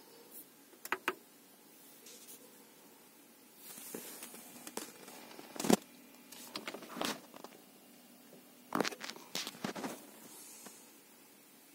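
Handling noises: a scattered series of sharp clicks and knocks with short rustles between them, the loudest click about six seconds in.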